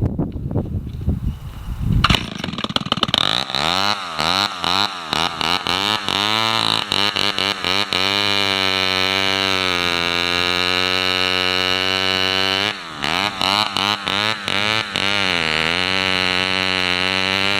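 Vintage two-stroke chainsaw starting up about two seconds in, then revved up and down several times before running steadily at speed, with a brief dip and a few more revs near the end.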